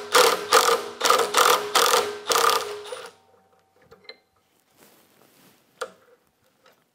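Cordless impact driver hammering in quick pulses with its motor whining, backing a quarter-inch bolt out of the end of a drive shaft; it stops about three seconds in. A single sharp metallic click near the end.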